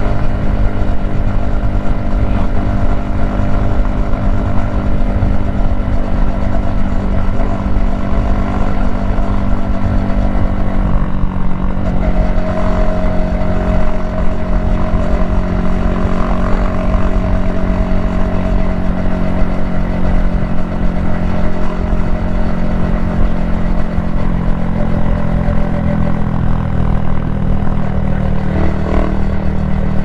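Yamaha XSR155's 155 cc single-cylinder engine running steadily under way, with wind noise on the helmet-mounted microphone. About eleven seconds in, the engine note drops to a lower pitch and then holds steady.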